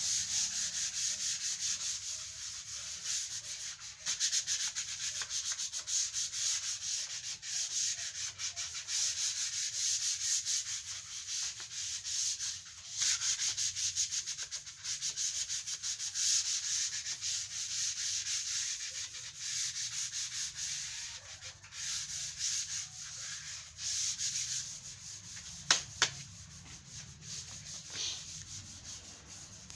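Sandpaper, 240 grit, rubbing by hand over wood sealed with a first coat of sanding sealer: a hissing scratch that rises and falls with quick back-and-forth strokes. The strokes grow quieter in the last few seconds, and two sharp clicks come just before then.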